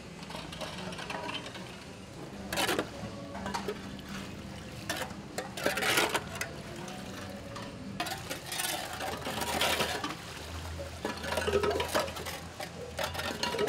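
Hand tools scraping and knocking in a concrete street gutter as debris is cleared out, in irregular bursts.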